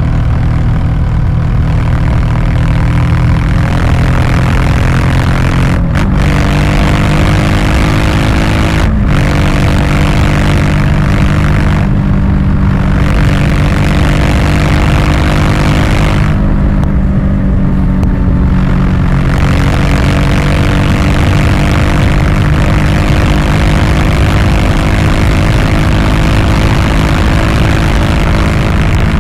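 2020 Honda Africa Twin Adventure Sports' 1084 cc parallel-twin engine running hard under acceleration at highway speed, with wind rushing over the microphone. The engine note jumps higher twice, about 6 and 9 seconds in, each time after a brief break, then holds fairly steady.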